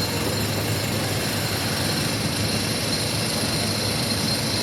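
Steady, unbroken mechanical noise with a faint constant high whine and a low hum, the kind of sound made by engines or heavy traffic.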